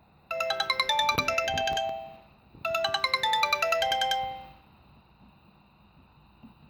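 Sony Ericsson K810i mobile phone playing a ringtone: a short melody of quick notes, played twice, each time about two seconds long, then it stops.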